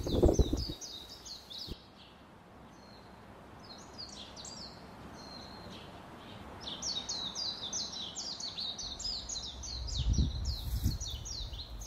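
Songbirds chirping in quick runs of high, downward-sliding notes, thinning out for a couple of seconds early on and then coming thick again. A few low thumps near the start and about ten seconds in.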